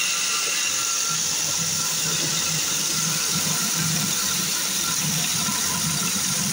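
Electric food processor running at a steady speed, its blade grinding fried boondi into a coarse crumb, with a steady motor whir and hiss.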